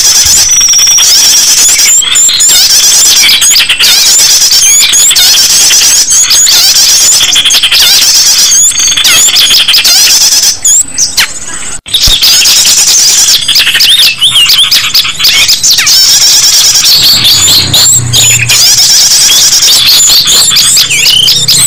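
Dense, loud chorus of many small songbirds chirping and twittering over one another, a mixed bird-lure recording. The calls drop out briefly about halfway, and a low steady tone comes in near the end.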